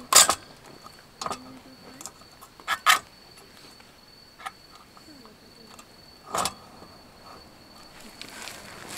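A few sharp metal clicks and taps, spaced irregularly, as a hurricane oil lantern is handled and lit. Behind them a steady high insect trill, typical of crickets, runs on.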